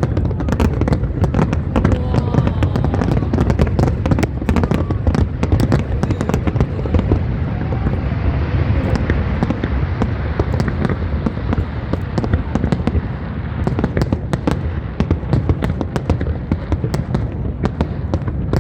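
Fireworks display: many bangs and crackles in rapid succession over a continuous low rumble, the bangs thinning a little in the middle while a fizzing crackle fills in.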